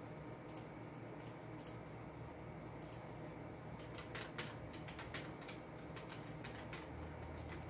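Irregular clicks from a computer keyboard and mouse, sparse at first and coming more often from about four seconds in, over a low steady hum.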